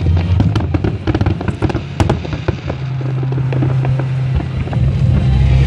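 Aerial fireworks bursting in quick succession: many sharp bangs and crackles over a steady low hum.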